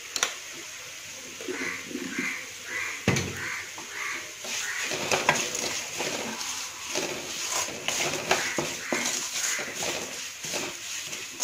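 Onion, garlic and chilli masala sizzling in oil in an aluminium kadai while a flat wooden spatula stirs and scrapes it; the stirring grows busier from about four seconds in. Early on a bird calls about five times in a row.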